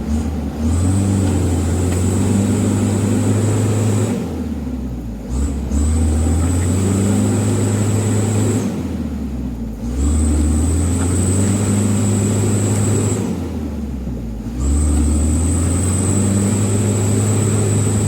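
Mitsubishi Canter HD 125PS truck's diesel engine revved hard in four pushes of about three seconds each, easing off briefly between them, with a thin high whine over each push. The heavily loaded truck is straining to climb a slippery mud track.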